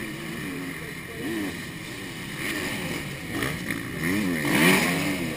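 Dirt bike engines revving, their pitch rising and falling with each throttle change. The sound grows loudest about four and a half seconds in as a bike comes by.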